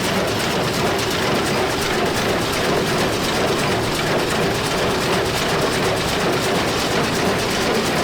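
John Deere 346 square hay baler running behind its tractor while baling: a steady mechanical clatter of the baler's moving parts over the tractor engine's drone.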